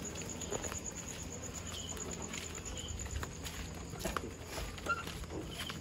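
Night insects trilling steadily: a high, fast-pulsing chirp that fades a little after halfway. Over it come scattered soft scuffs and clicks from a motorcycle being wheeled by hand with its engine off, and from footsteps in flip-flops on concrete.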